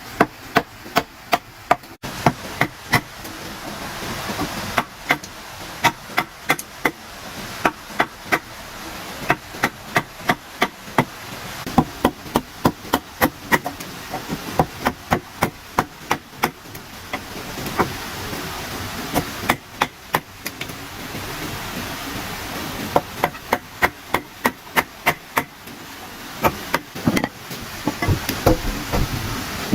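Hammer striking wood in quick runs of about three blows a second, with short pauses between runs, as when nailing timber.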